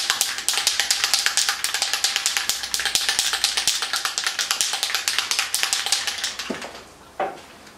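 Aerosol can of Plasti Dip being shaken hard, its mixing ball rattling back and forth in a fast, steady rhythm as the dip is stirred off the bottom of the can. The rattling stops about six and a half seconds in, followed by a couple of single clicks.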